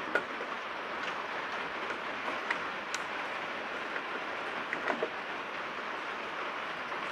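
A steady rushing hiss, with a few small metallic clicks and ticks from a screwdriver backing out the screws of a tractor's plastic tail-light housing and the loose screws being handled.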